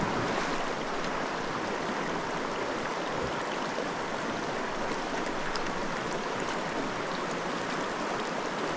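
Creek water running over riffles and rocks: a steady rush.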